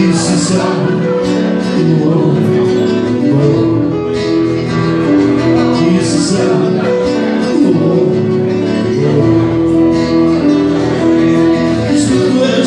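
Live band music: acoustic guitar and electric keyboard playing a song, with the saxophonist's band. Steady held chords and melody notes.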